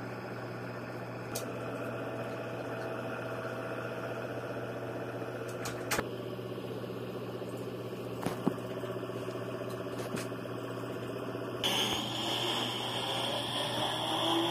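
Recorded sound of a Nissan GT-R's twin-turbo V6 idling steadily, with a few sharp clicks. Near the end the sound changes suddenly and the pitch starts climbing, as in a rev.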